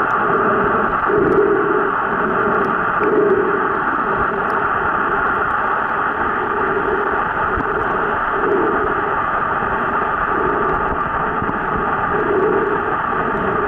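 Muffled underwater noise picked up by a camera held underwater while snorkeling: a steady hiss with a low whoosh of moving water every second or two.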